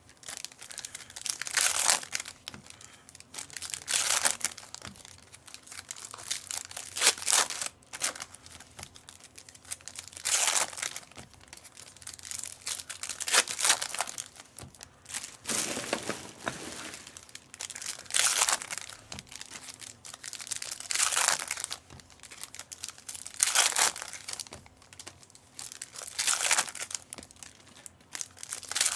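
Foil trading-card packs being torn open and crinkled, one after another: about ten crinkling rips, coming roughly every two and a half seconds.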